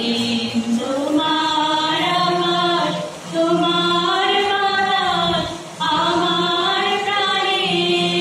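A small group of women singing a song together in unison, in long held phrases with short breaks for breath, over steady held harmonium notes.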